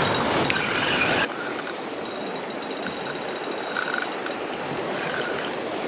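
A rushing wash of surf and wind for about the first second, then a Daiwa BG 3000 spinning reel clicking rapidly for a couple of seconds as a hooked fish is fought out of kelp.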